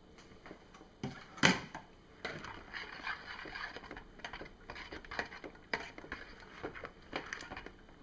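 Irregular knocks and scraping of a utensil against a container as the soap batter is mixed after the fragrance oil goes in, with one sharper knock about a second and a half in.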